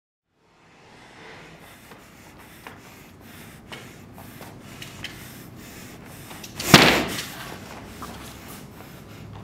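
Quiet room noise with a few faint taps, then one short, loud rush of air about two-thirds of the way through that fades within half a second.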